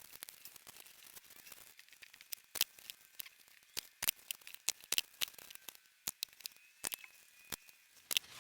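Sparse sharp clicks and light rustling as nylon webbing is handled and stapled into shape, the clicks irregular, a few seconds apart.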